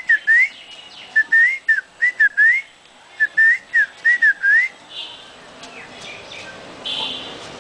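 A person whistling close by: short, clear swooping notes, mostly rising, in three quick runs with brief pauses between them. The whistling stops about five seconds in.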